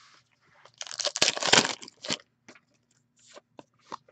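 An SP Authentic hockey card pack's wrapper being torn open: a loud crinkling rip lasting about a second, followed by a few light clicks as the cards are handled.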